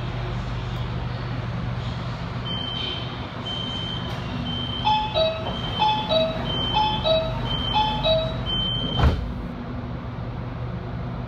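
Door-closing warning on a Shenzhen Metro Line 11 CRRC Zhuzhou electric train: a run of short high beeps joined by a falling two-note chime repeated four times, ending in one sharp thud about nine seconds in as the doors shut. A steady hum from the standing train runs underneath.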